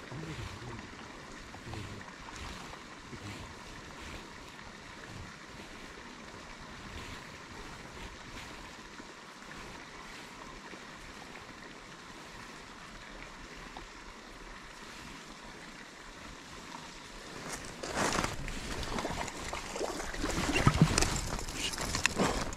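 Steady outdoor hiss, like wind or moving water. In the last few seconds there are louder, irregular rustles and knocks close to the microphone.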